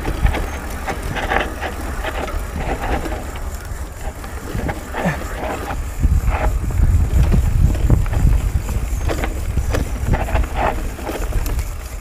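Mountain bike rolling down a dirt singletrack: tyres running over the dirt with the bike's chain and frame rattling over bumps, under a low rumble that gets heavier about halfway through.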